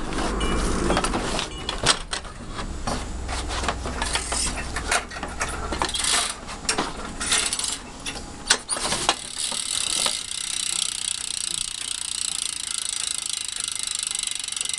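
BMX rear wheel's freewheel hub ratcheting as the wheel is spun: irregular clicks and knocks for the first nine seconds or so, then a steady fast buzz of the pawls as the wheel coasts freely.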